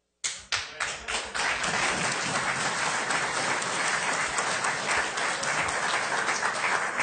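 Audience applauding: a few separate claps break out about a quarter second in and quickly swell into steady, dense applause.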